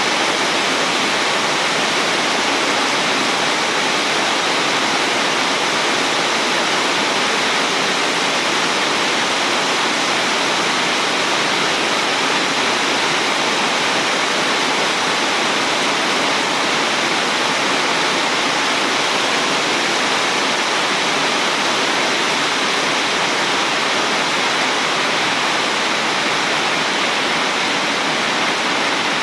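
Heavy rain pouring down in a steady, dense hiss, unchanging throughout, with no thunderclap.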